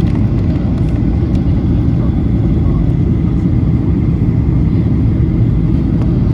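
Steady low rumble of a Boeing airliner heard from inside the passenger cabin: engine and airflow noise at an even, loud level.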